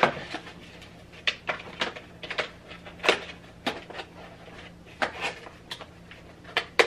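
Thin cardboard box being handled and closed on a desk: about ten irregular taps and scrapes as the flaps are folded and tucked in.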